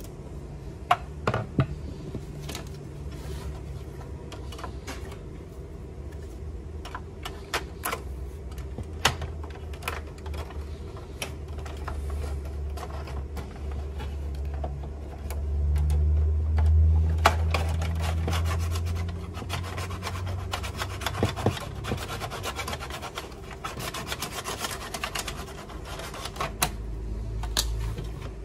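Handling noise from an opened Canon inkjet printer: scattered clicks and knocks of its plastic parts, a low rumble near the middle, and a stretch of dense rubbing and scraping in the second half as a metal ruler is worked down into the paper path.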